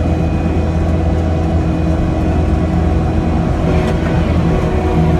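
Diesel engine of a Kubota SVL75-2 tracked skid steer running steadily under load as the machine drives, with a thin steady whine above the engine drone.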